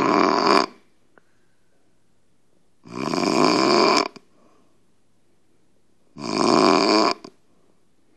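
A man snoring loudly. Each snore lasts about a second and comes about every three seconds: one ends just after the start, and two more follow.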